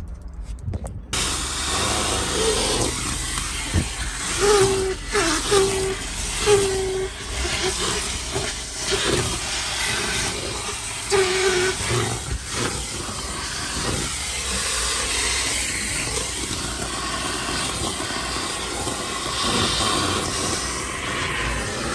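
Car wash vacuum hose sucking dust from a car's carpet and seats: a loud, steady rushing hiss that starts about a second in. A few brief tones sound as the nozzle works over the surfaces.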